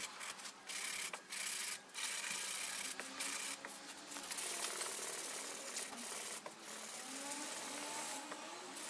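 Sandpaper rubbing by hand over cured body filler on a car's bumper moulding: a dry scratching hiss in repeated back-and-forth strokes, with short breaks between them.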